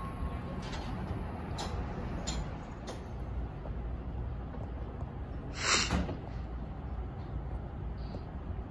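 A New Jersey Transit Comet commuter train standing at the platform, with a steady low rumble of idling equipment. Short puffs of air hiss come between about one and a half and three seconds in, and a louder burst of compressed air hisses for about half a second a little before six seconds in.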